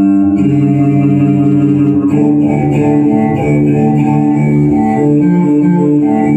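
Instrumental music played back through a pair of Technics SB-6000A loudspeakers. Held notes give way to a run of quicker notes about two seconds in.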